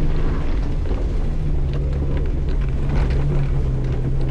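Off-road vehicle's engine running steadily under load while driving a rough, beat-up trail, with scattered knocks and rattles from the bumps.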